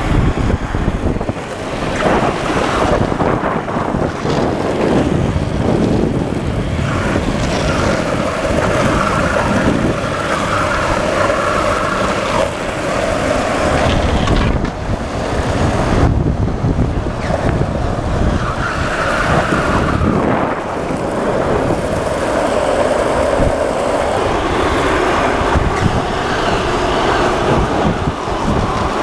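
Longboard wheels rolling fast on asphalt, with wind rushing over the microphone on a downhill run; a steady roar that swells and eases as the riders carve.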